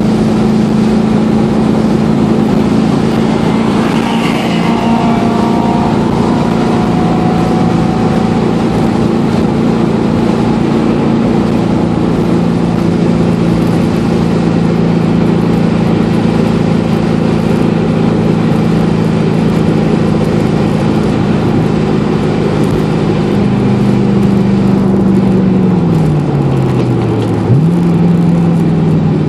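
The swapped-in 5.7-litre LS1 V8 of a 1993 Mazda RX-7, heard from inside the cabin, running loud at a steady engine speed. Near the end the engine note drops, jumps back up once sharply, and drops again.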